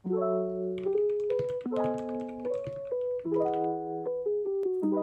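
Background music: a soft piano melody over sustained chords.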